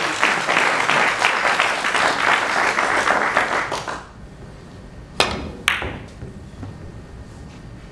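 Audience applause that dies away after about four seconds. Then come two sharp clicks about half a second apart as a carom shot is played: the cue tip striking the cue ball, then that ball striking another ball.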